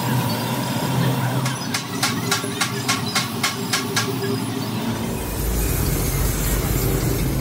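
Stiff brush scrubbing rubber cement onto a tyre's inner rubber surface: a run of about nine quick scratchy strokes, roughly four a second, over steady workshop noise. About five seconds in, a low engine rumble comes in.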